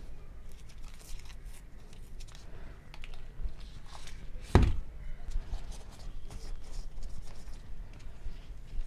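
Cleaning wipe rustling and rubbing as it is handled and wiped over a phone screen. There is one sharp tap about four and a half seconds in.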